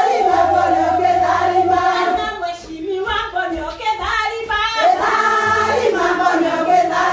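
A group of voices singing together, choir-like, with a long held note at the start.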